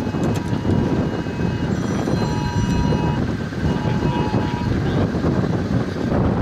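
Strong wind buffeting the microphone, a gusty low rumble. Faint held tones sound on and off in the middle.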